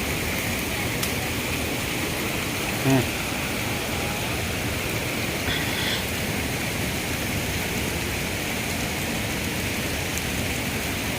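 Steady rushing of water over a waterfall's cascades. A brief voice cuts in about three seconds in.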